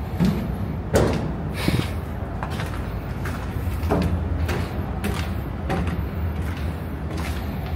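Footsteps climbing stairs, a series of short irregular thumps, the firmest about a second in, over a steady low hum.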